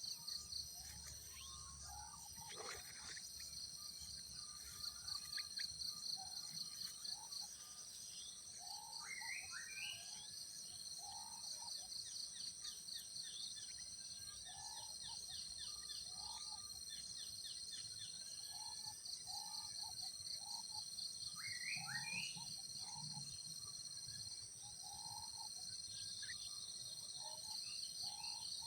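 Natural outdoor ambience: insects shrill steadily at a high pitch, with a pulsing trill that comes and goes every few seconds. Over it, birds give scattered short chirps and a few quick rising calls.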